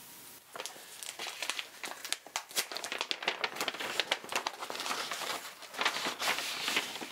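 Paper crinkling and crackling as a red printed paper advent packet is handled and pulled open: a dense, irregular run of small sharp crackles that starts about half a second in.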